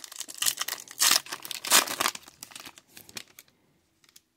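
Foil wrapper of an Upper Deck hockey card pack being torn open and crinkled by hand: a dense crackling with louder rips about one and nearly two seconds in, dying away shortly before the end.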